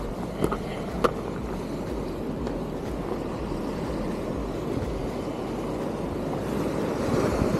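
Steady wind rumbling on the microphone, with surf washing against the jetty rocks, swelling a little near the end. Two or three short sharp clicks sound in the first second or so.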